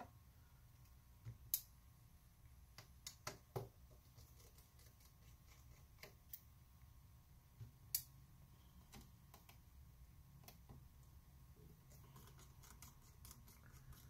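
Near silence broken by scattered light clicks and taps of a small precision screwdriver working the screws out of a laptop's bottom cover. The sharpest click comes about eight seconds in.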